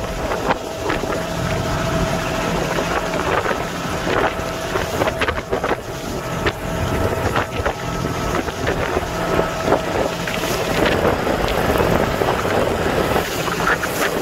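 Motorboat's engine running steadily underway, with wind buffeting the microphone.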